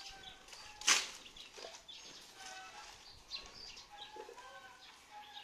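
Birds chirping and calling in short whistled notes, scattered throughout, with one sharp snap about a second in.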